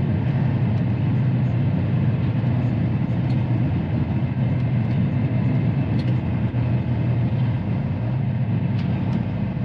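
Semi-truck driving slowly, heard from inside the cab: a steady low diesel engine drone over road and tyre noise.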